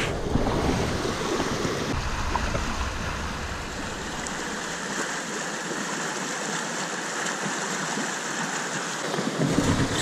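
Small mountain stream running over rocks, a steady rush of water, with a low rumble on the microphone that stops about four seconds in.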